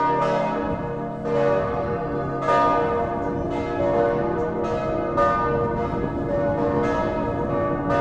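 The bells of St. Anne's Church (St. Annenkirche) in Annaberg-Buchholz pealing together. Several bells strike in an uneven, overlapping pattern about once a second, each strike ringing on under the next.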